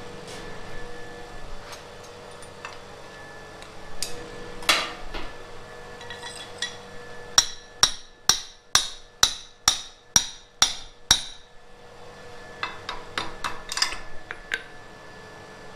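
Blacksmith's hand hammer striking hot steel bar on an anvil: a few scattered knocks, then a steady run of about nine hard blows, a little over two a second, about halfway through, followed by lighter, quicker taps. A faint steady hum sits underneath.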